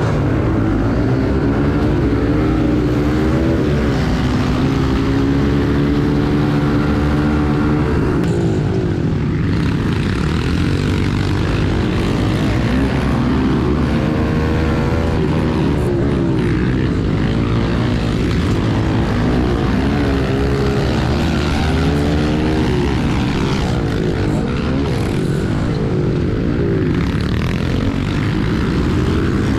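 Small single-cylinder four-stroke pit bike engine, heard from on the bike, revving hard off the start line and climbing in pitch for several seconds, then rising and falling repeatedly through gear changes and corners. Other pit bikes run close alongside.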